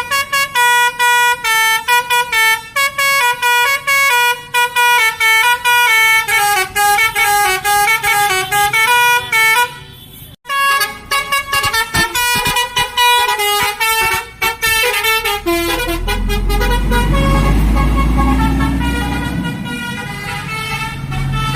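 A bus's telolet Basuri musical horn plays a tune of quick stepped notes for about ten seconds, stops briefly, then plays again for about five seconds. In the last few seconds a low engine rumble takes over, with a tone that slowly rises in pitch.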